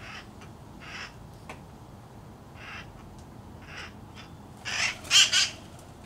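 A parrot squawking: four short calls spaced about a second apart, then two louder, longer squawks close together near the end.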